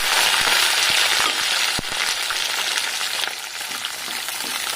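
Small onions, garlic and curry leaves sizzling in hot sesame oil in an iron kadai, a steady hiss with a few sharp clicks, easing somewhat after about three seconds.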